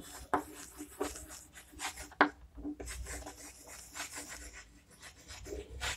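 Chalk writing on a blackboard: short scratchy strokes as letters are written out, with a couple of sharper taps where the chalk strikes the board.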